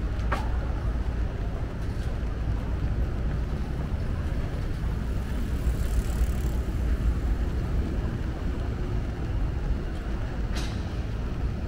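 City street ambience: a steady low rumble with two short clicks, one near the start and one near the end.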